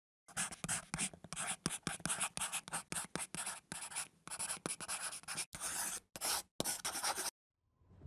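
Pencil scratching on paper in a quick run of short strokes, about four a second, stopping shortly before the end.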